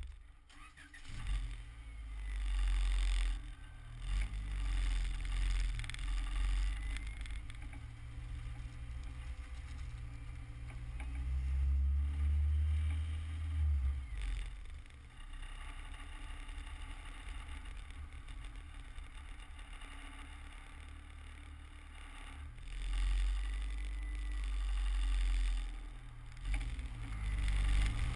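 Honda Civic Si (EM1) driving, heard from low beside the front wheel: the engine runs under a deep rumble of road and wind noise. It swells louder twice as the car pulls harder, about midway and again near the end.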